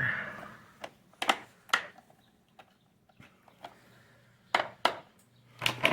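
Scattered sharp clicks and knocks of a screwdriver working at the screws of a vacuum cleaner's plastic housing, three in the first two seconds and a few more near the end.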